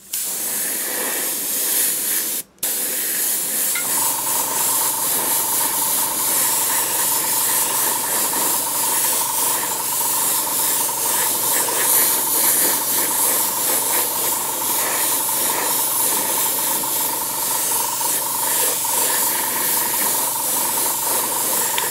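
Airbrush spraying dark green paint over stencils on a model jet, a steady hiss of air and paint with a brief break about two and a half seconds in. A steady whine joins the hiss about four seconds in.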